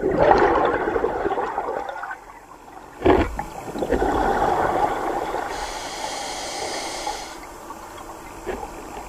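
Scuba diver breathing underwater through a regulator: exhaled bubbles rushing and gurgling out in surges, with a sharp burst about three seconds in.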